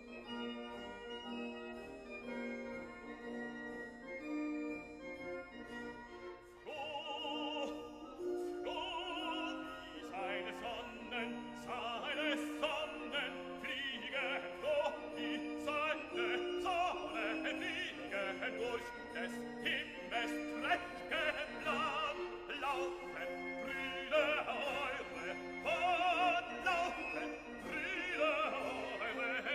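Background classical music: a keyboard-like instrumental passage, then after about seven seconds an operatic voice with strong vibrato over orchestra.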